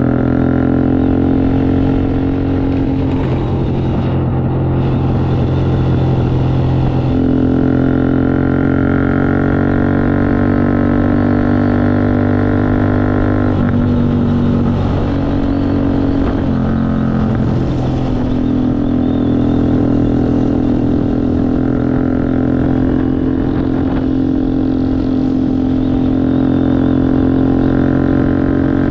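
A 4x4 vehicle's engine running steadily on the road, a continuous droning note that breaks up and shifts in pitch twice before settling again.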